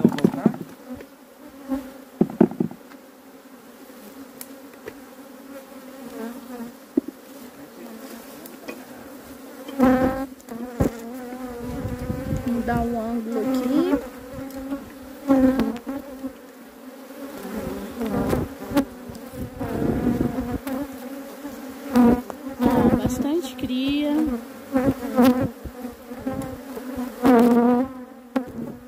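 Honeybees buzzing around an opened hive: a steady hum with individual bees passing close by again and again, each pass swelling and sliding in pitch.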